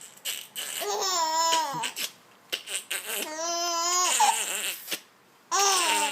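A baby laughing and squealing in three drawn-out, wavering bouts, with short sharp noises between them.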